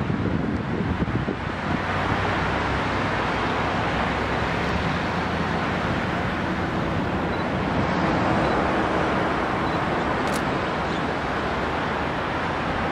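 Steady roar of urban road traffic, with wind buffeting the microphone, swelling slightly around the middle.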